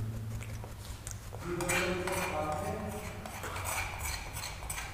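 Spoon clinking and scraping against a sieve and bowl while flour is sifted: a run of quick light metallic taps that starts about a second and a half in.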